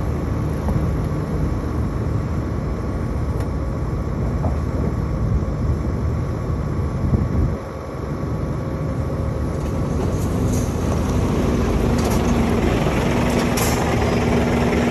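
Caterpillar crawler bulldozer's diesel engine running steadily, with a brief dip about halfway. From about ten seconds in, a tipper truck's diesel engine grows louder as it draws up close, with a few light clanks.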